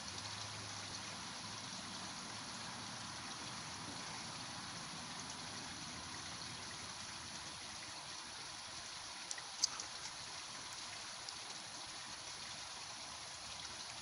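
Steady outdoor background hiss with no voice, with a few faint clicks about nine and a half seconds in.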